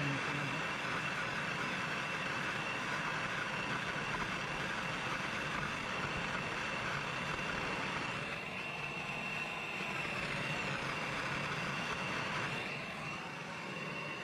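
Handheld gas torch burning steadily with a hissing flame, played on a copper cable lug to heat it and flow solder into the crimped joint. The sound wavers about eight seconds in and again near the end, and a steady high whistle runs underneath.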